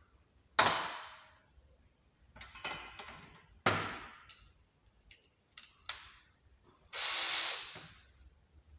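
Hand tools being handled at a metal tool trolley: two sharp clanks that ring on briefly, a few lighter clicks, then a steady hiss lasting about a second near the end.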